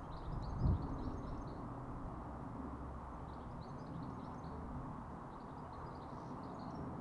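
A small bird singing outdoors in three short phrases of high chirps, over a steady low background rumble. There is a single bump about a second in.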